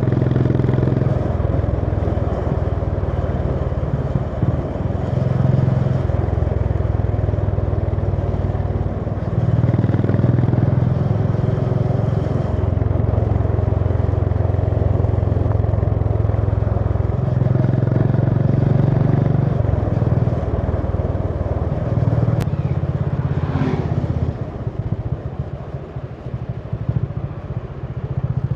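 Honda CB350 H'ness's single-cylinder engine running on the move, its note rising and falling every few seconds with throttle and gear changes. It drops to a quieter, choppier beat for the last few seconds before picking up again at the end.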